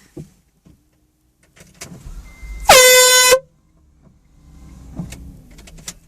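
One short air horn blast inside a van, about halfway through, dipping slightly in pitch as it starts. Knocks and rustling come just before it.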